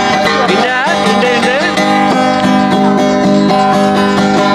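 Acoustic guitar being strummed, its chords ringing steadily, with a higher melody line that slides in pitch a little after a second in.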